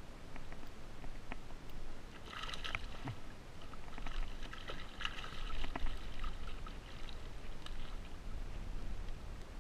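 A hooked fish splashes at the surface beside a fishing kayak as it is reeled in and lifted aboard, with light clicks from the reel and gear. The splashing is busiest through the middle few seconds.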